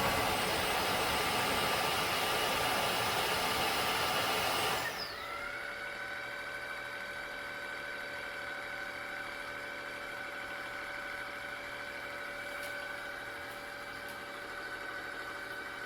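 Tineco Floor ONE S7 PRO wet-dry vacuum running its self-cleaning cycle on the dock, in the pipe-cleaning stage. The motor runs loud for about five seconds, then drops suddenly to a quieter, steady whine.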